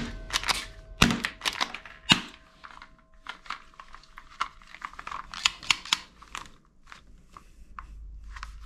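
Plastic toy guns clattering and knocking against each other as they are handled in a cardboard box: three loud knocks in the first two seconds, then a run of lighter plastic clicks that dies away near the end.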